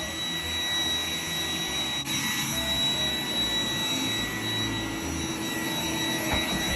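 iRobot Roomba robot vacuum running a cleaning cycle: a steady whirring of its motor and brushes with a thin, high whine.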